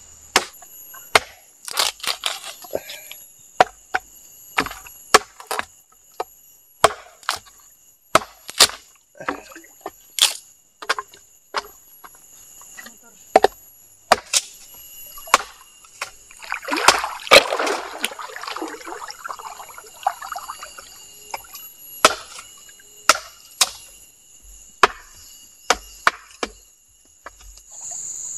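A machete chopping firewood on a log: sharp single blows about every second, with a denser stretch of cracking and splintering wood about two-thirds of the way through. Insects shrill steadily in the background.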